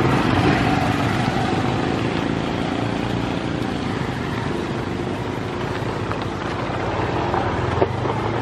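Narrow-gauge diesel locomotive engine running steadily as the train hauls its coaches along the line, with one short click near the end.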